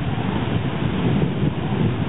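Wind buffeting the microphone: a steady, rough low rumble with no other distinct sound standing out.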